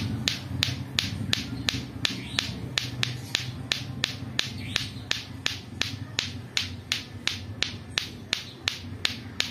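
Lato-lato clackers, two plastic balls on strings, clacking together in a steady even rhythm of about four clacks a second.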